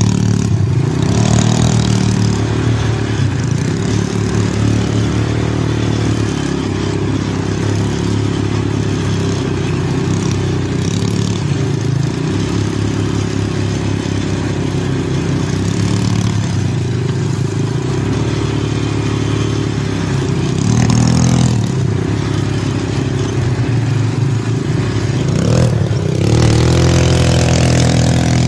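Small ATV engine running steadily as the quad rolls slowly along a dirt trail, its pitch rising and falling with the throttle; it revs up briefly about two-thirds of the way through and again near the end.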